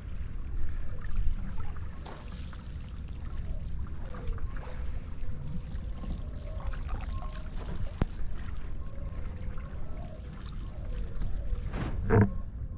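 Wind rumbling on the microphone over water trickling and splashing around a hydrofoil board gliding over the sea. A brief louder bump comes near the end.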